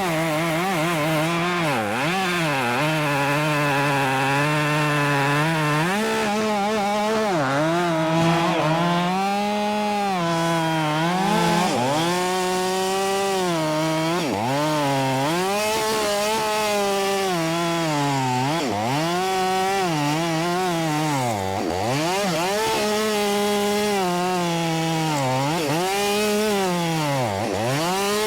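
Ported Husqvarna 572 XP two-stroke chainsaw cutting oak at full throttle. The engine note drops each time the chain loads up in the wood and climbs back again, over and over, with a few deeper bogs.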